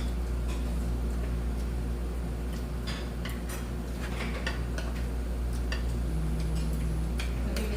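Scattered light clicks and taps of utensils on dishes, mostly in the second half, over a steady low hum.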